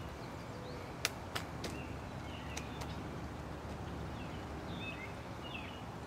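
Pileated woodpecker striking the tree trunk with its bill: three sharp knocks in quick succession about a second in. Faint short chirps of small birds come and go over a steady low background rumble.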